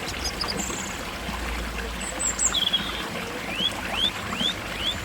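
Stream of water trickling steadily, with small birds singing over it: a few short high chirps in the first half, then a run of five quick rising notes, about three a second, near the end.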